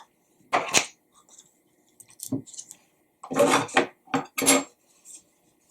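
A spreader scraping and tapping as peanut butter is spread onto a cardboard paper towel tube, in a few short, irregular strokes.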